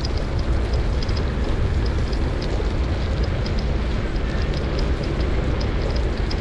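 Steady rumble of wind buffeting the microphone together with tyres rolling on asphalt while riding, with faint high ticks now and then.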